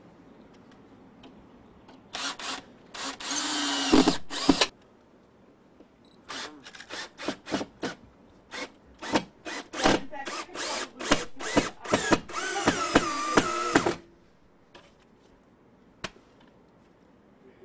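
Power drill driving screws into a door jamb in stop-start trigger bursts: a few short bursts and a longer run early, a rapid string of short pulses through the middle, then a steadier whining run that stops about fourteen seconds in.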